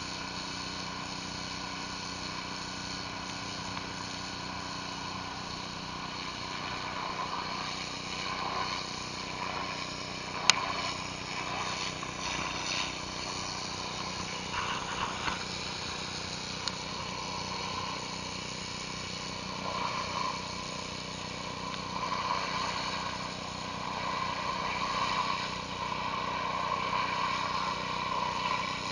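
Pressure washer running steadily while a surface cleaner sprays water across concrete, an engine drone under a constant hiss. A single sharp click about ten seconds in.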